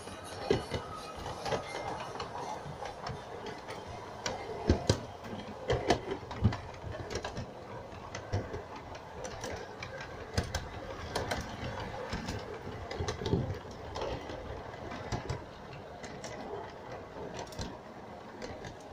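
LGB G-scale model train running along its track: the geared drive whirs steadily while the wheels click irregularly over the rail joints and the wagons rattle.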